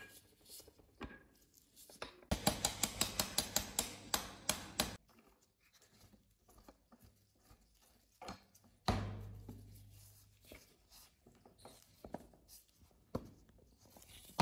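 Quick run of sharp metal clicks, about five a second, then scattered knocks and clinks, as the crank handle is fitted and its nut fastened onto the shaft of an antique hand-cranked meat grinder.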